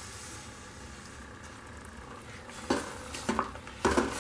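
Steel ladle stirring thick tamarind gojju in a metal pressure-cooker pot, with three loud scraping knocks against the pot in the last second and a half. Before that there is a faint steady sizzle of the paste simmering on a low flame.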